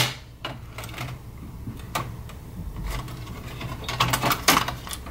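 Scattered clicks and knocks of plastic and metal as the Chinon floppy drive's ribbon cable connector is worked loose and the drive is lifted out of an Amiga 500 case, with a sharper knock near the end.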